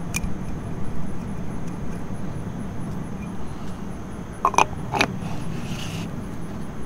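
A few light clicks and taps of an aluminum oil-bath hub cap being handled and set onto a trailer hub to be threaded on by hand, over a steady low background rumble. One click comes just after the start and two come close together about four and a half to five seconds in.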